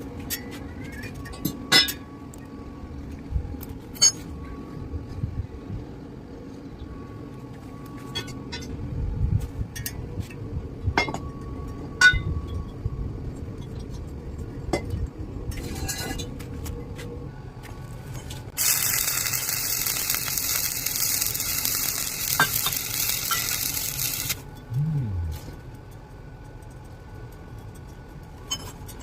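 Scattered metallic clinks and taps, then about two-thirds of the way in a stick-welding arc crackles and sizzles steadily for about five seconds before cutting off suddenly.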